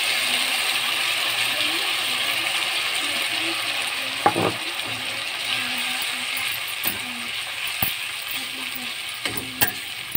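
A yellow mixture sizzling in hot oil in a steel wok just after being poured in, the sizzle slowly dying down. A steel spatula scrapes and clicks against the wok a few times, once about four seconds in and several times near the end.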